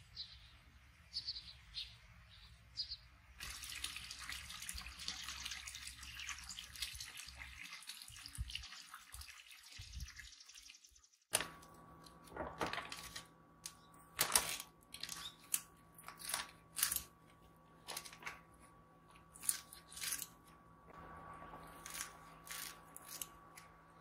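Birds chirp a few times, then a steady trickle of running water is heard. After a sudden cut come crinkling of a plastic zip bag and sharp clicks as blanched rapeseed shoots are handled into a dish, over a faint steady electrical hum.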